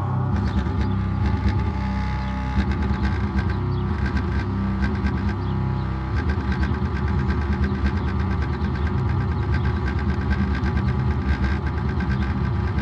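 A car subwoofer playing bass-heavy music loudly, with the car's engine running.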